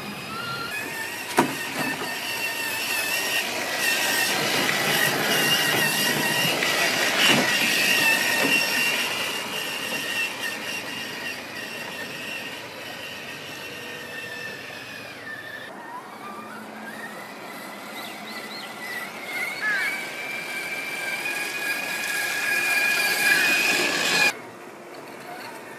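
Electric motor and gear drive of an Axial SCX6 1/6-scale RC rock crawler whining steadily as it climbs over rock, with a couple of sharp knocks from the tyres and chassis on the stone. Past the middle the whine rises in pitch as the motor speeds up, and it drops away suddenly near the end.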